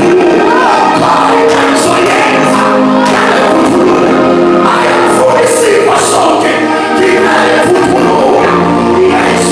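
A group of voices singing a gospel worship song over musical accompaniment, with long held notes.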